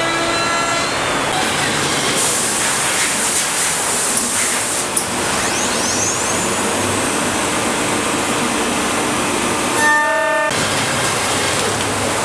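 CNC woodworking machining centre milling a wooden exterior door blank: a steady hiss of cutting and dust extraction, with a short whine about ten seconds in.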